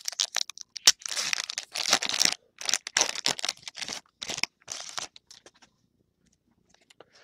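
Crinkling and rustling of a foil trading-card pack wrapper and cards being handled, in a run of short bursts that stops about five seconds in.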